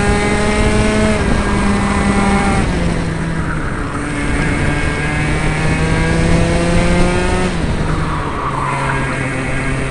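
60cc two-stroke Mini kart engine running hard, its pitch climbing steadily under acceleration and dropping sharply three times as the throttle comes off for corners.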